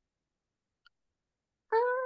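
Near silence, then near the end a young girl's voice holds a drawn-out, steady-pitched 'ummm' of hesitation, as if thinking what to say.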